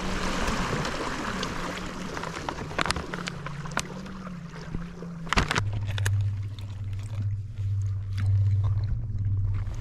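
Water rushing along the hull of a moving kayak, fading over the first few seconds. After that come a few sharp clicks and rattles as a plastic tackle tray is handled, over a low steady hum.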